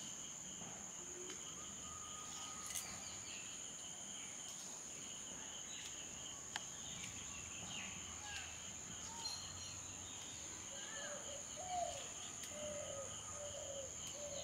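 Rural outdoor ambience: a steady high insect drone and a pulsing cricket-like trill, with short bird calls coming more often in the second half.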